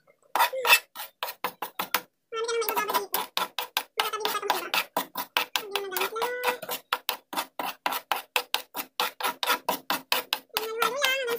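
A metal spoon scraping and clicking rapidly against a frying pan while a thick baking-soda paste is stirred, with a voice humming or singing behind it.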